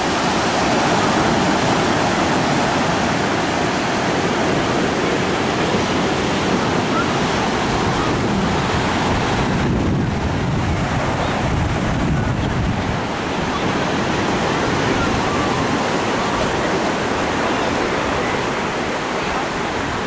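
Ocean surf breaking and washing up the beach: a steady, even rush of waves.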